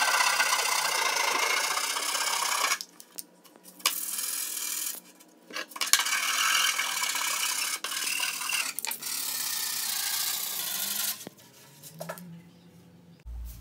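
Hand file scraping along the rounded corner of a pine board in quick, continuous strokes, breaking off briefly about 3 and 5 seconds in and stopping about 11 seconds in. The filing smooths and shapes the board's sawn corner.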